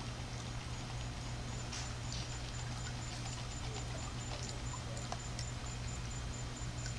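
A steady low hum under a rapid, high-pitched chirping that sets in about two seconds in, with a few faint clicks.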